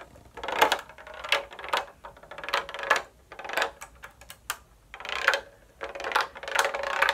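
A small ball rolling across a LEGO baseplate maze and knocking against the plastic brick walls as the board is tilted: an irregular run of light clicks and short rattles.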